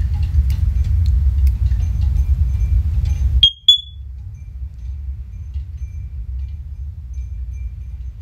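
A loud low rumble cuts off suddenly about three and a half seconds in. A First Alert OneLink smoke alarm gives two short high beeps at that moment while its test button is held, followed by faint scattered beeps as the linked alarms start up.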